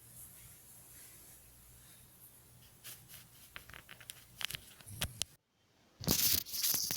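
Quiet room with a low hum, then a run of soft clicks and rustles from about halfway in. After a brief drop-out, a loud burst of rustling noise comes near the end.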